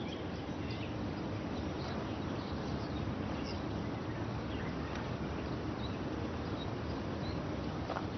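Steady outdoor ambience with faint, occasional bird chirps.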